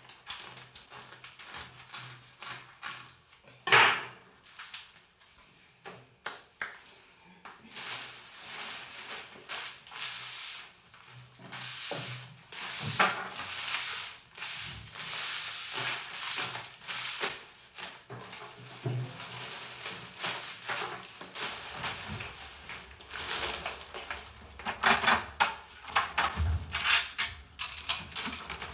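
Household clatter of a kitchen table being cleared: dishes, cups and objects knocked together and set down, with scraping and rustling. A sharp knock stands out about four seconds in, and a low steady hum comes in about two-thirds of the way through.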